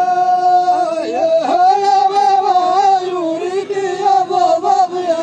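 A group of Amazigh men singing a chant in unison. They hold one long steady note for about the first second, then the melody wavers up and down in long drawn-out notes.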